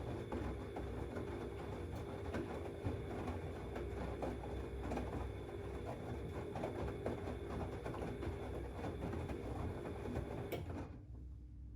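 Siemens Extraklasse XLS 140 A washing machine running mid-wash, its motor humming steadily over the rattle and swish of the turning drum, then stopping suddenly about eleven seconds in.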